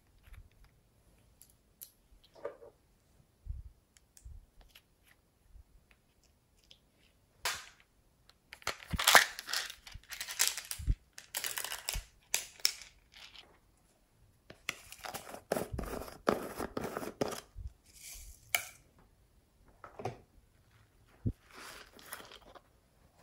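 Small plastic containers handled and clicked, with pearl beads shaken out of a plastic container into a tray of slime. Sparse clicks at first, then two spells of dense rattling and clicking, the first and loudest about a third of the way in.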